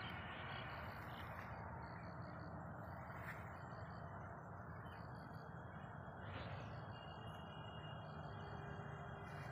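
Faint outdoor field ambience: a steady background rush with small groups of short, high chirps from birds or insects repeating throughout, and a few thin, held whistles in the last few seconds.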